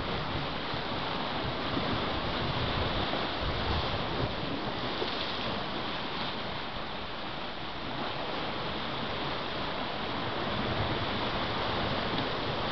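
Sea surf washing and foaming over shoreline rocks, a steady rushing wash that swells and eases gently.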